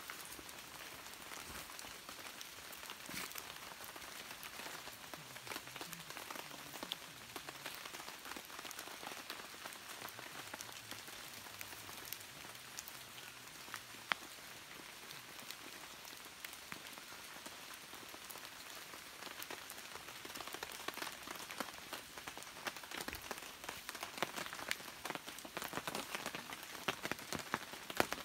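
Rain falling on rainforest foliage: a steady hiss with many small drip taps, which grow denser over the last few seconds.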